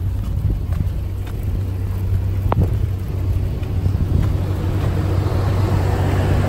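Motor vehicle engines running with a steady low rumble, growing louder over the last couple of seconds, with one brief sharp chirp about two and a half seconds in.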